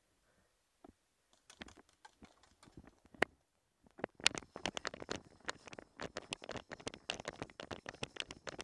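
Running footsteps on grass with gear clattering close to a head-mounted microphone. A few scattered clicks come first, then about four seconds in a dense, irregular run of sharp thuds and rattles several times a second.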